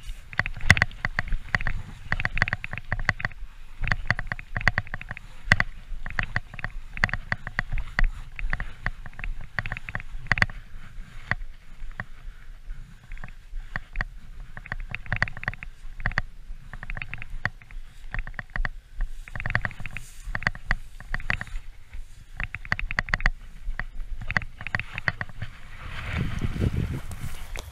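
Spinning reel cranked while playing a hooked fish, giving quick runs of rattling clicks over and over, with low rumbling handling and wind noise on the camera. A louder rush of noise comes near the end.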